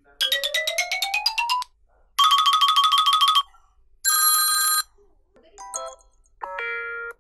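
A string of short electronic ringtone-style tunes with gaps between them: a rising run of notes, a fast repeated tone, a held chord, then a few quick blips and a short stepped run near the end.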